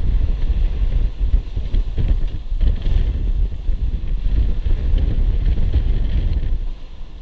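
Strong wind buffeting the microphone over the rush and splash of waves breaking along a sailboat's hull in rough open sea, easing briefly near the end.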